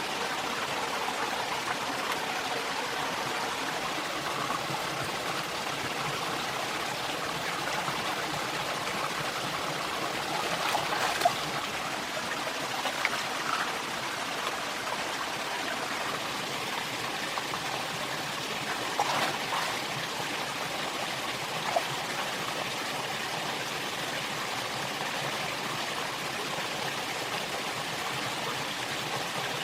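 Steady rushing of running water from a forest stream, with a few brief, sharper sounds standing out over it.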